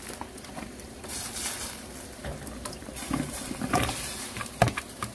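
Pieces of cut radish being dropped into a pot of soup stock, making an irregular patter of small knocks and splashes.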